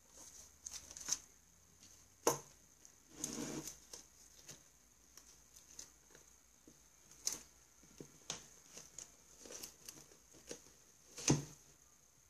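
Paperback workbook being handled: pages rustling and riffling, with scattered light taps and knocks. Near the end there is a louder knock as the book is pushed into place among other books on a shelf.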